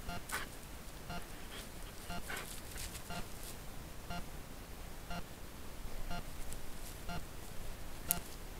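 Trail camera's faint electronic pip repeating about once a second over a steady hiss, the recorder's own self-noise. A few short, soft sounds break in just after the start, twice between two and three seconds in, and as a sharp click near the end.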